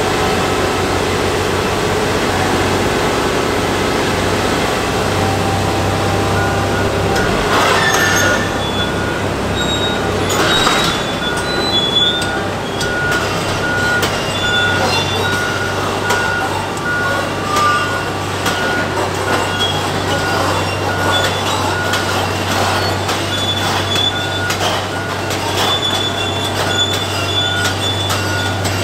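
Komatsu PC1250 excavator travelling on its steel crawler tracks, its diesel engine making a steady low drone that strengthens about five seconds in. From about seven seconds in the track chains squeal with sustained high tones and clank now and then.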